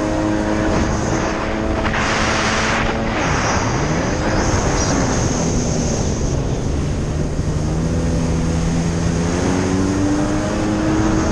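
2000 Sea-Doo GS personal watercraft's two-stroke engine running under way on the water. Its pitch drops a few seconds in as the throttle eases off, holds low, then climbs again near the end, with a burst of rushing spray about two seconds in.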